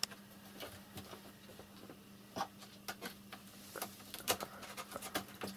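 A cat's claws scratching and clicking irregularly on a wooden bunk post as it stretches up to climb, over a faint steady hum.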